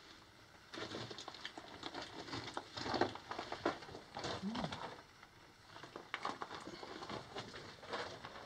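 Footsteps crunching and scraping over loose rock rubble on a mine tunnel floor, in uneven runs of clicks and scrapes with a short pause about five seconds in.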